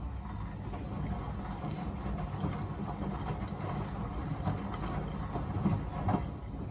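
Miele W Classic WDA211WPM front-loading washing machine in its wash phase on a 40°C coloureds programme: a steady low rumble with irregular sloshing and clatter as the drum tumbles the laundry in water. There are a couple of slightly louder knocks about six seconds in.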